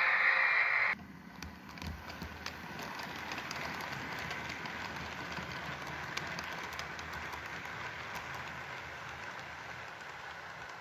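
Model railway freight train of steel wagons running on track: a steady rolling rumble with many light clicks of the wheels over the rail joints, slowly fading as it moves off. A louder hissing rush cuts off suddenly about a second in.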